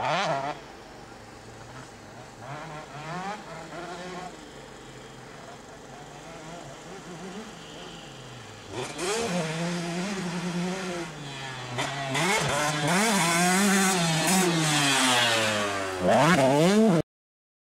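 Motocross dirt bike engines on a track, the pitch climbing and dropping again and again as riders rev through the gears and back off. They are faint at first and grow much louder in the second half, then the sound cuts off suddenly near the end.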